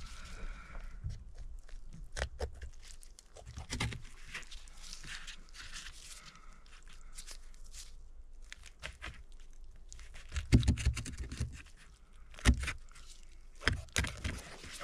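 A knife cutting and pulling meat from a skinned snowshoe hare carcass on cardboard: scattered clicks and scrapes, with a few louder knocks in the last few seconds.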